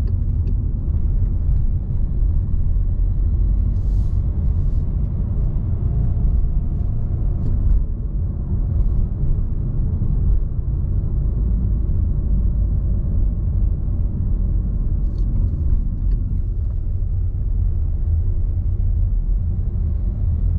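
Car driving, a steady low rumble of engine and road noise.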